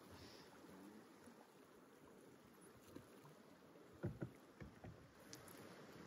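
Near silence: faint hiss with a few short soft knocks, the clearest about four seconds in.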